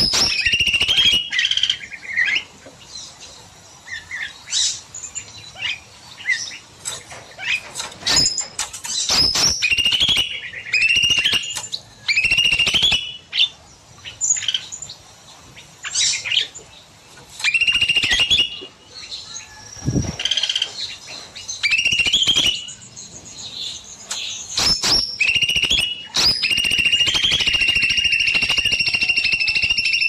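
A cucak mini songbird singing in long bouts: short rising whistled phrases every second or two, then from about four seconds before the end a continuous high trill.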